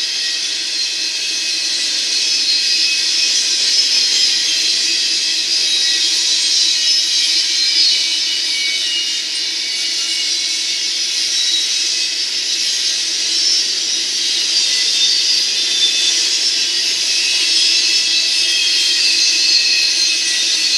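Double-stack intermodal train rolling past close by: a steady high hiss of steel wheels on rail, with faint steady ringing tones in it.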